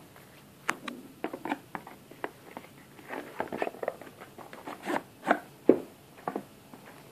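Cardboard Mac mini box being handled and opened: irregular scrapes, taps and rustles of card sliding and knocking. The loudest knocks come about five seconds in.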